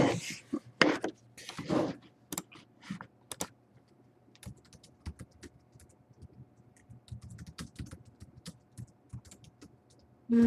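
A few louder knocks in the first two seconds, then light, irregular key clicks of typing on a computer keyboard.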